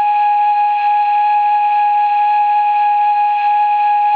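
Sound decoder of a Märklin 55077 gauge 1 BR 78 model steam locomotive playing a steam-whistle blast through its loudspeaker: one long, steady, loud whistle tone that wavers in pitch right at the end.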